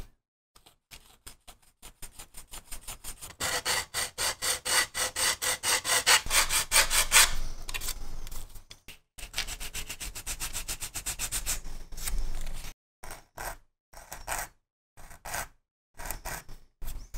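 A small metal hand file rasping back and forth over plastic model-kit parts, smoothing away the mould lines. The strokes come several a second, loudest for a few seconds in the middle, then turn into short bursts of strokes with pauses between them.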